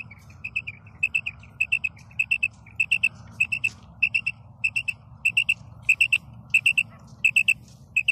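Female quail calling: short, high, whistled notes given in quick clusters of two or three, over and over, over a steady low hum.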